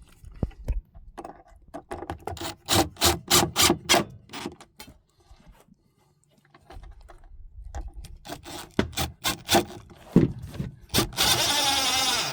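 Pieces of wooden cabinet infill being handled and knocked into place, a quick run of sharp wooden knocks and clicks that comes twice. Near the end comes a louder rasping noise lasting just over a second.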